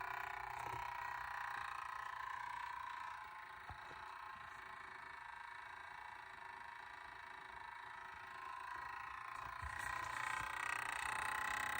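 Engine bay of a 2016 BMW 340i just after shutdown: a steady whirring hum with a few faint knocks, the after-shutoff noise that the owner calls engine knocking. The hum fades somewhat in the middle and grows louder again near the end.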